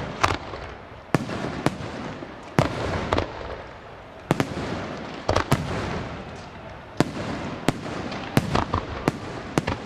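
Aerial firework shells bursting in a display, about fifteen sharp bangs at irregular intervals, with a continuous crackling hiss from the falling stars between them.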